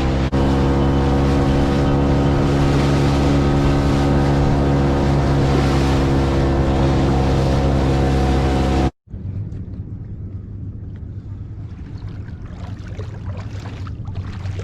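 Outboard motor running at a steady speed, with wind and water noise, until it cuts off suddenly about nine seconds in. A much quieter low hum and water sounds follow.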